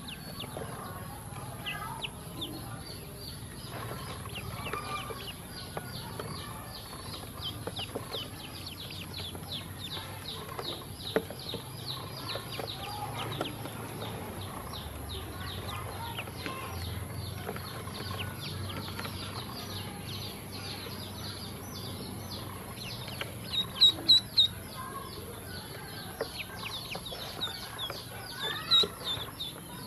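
A group of ducklings peeping almost without pause: many quick, high, short peeps, with a brief burst of louder peeps about two-thirds of the way through and a few more near the end.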